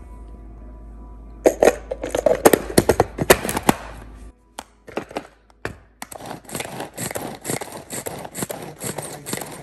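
Hand-pulled plastic food chopper at work on onion, tomato and green chili: a loud burst of plastic clicks and crunchy crackling, a short pause, then a steady run of quick clicks about three a second as the cord is pulled again and again and the blades spin through the vegetables.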